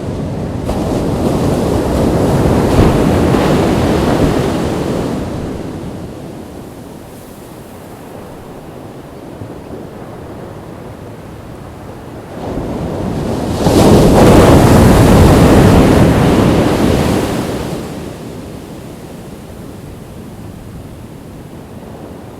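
Ocean waves breaking on a beach: two waves crash and wash in, a smaller one early on and a louder one about a third of the way through, with a low hiss of surf between them.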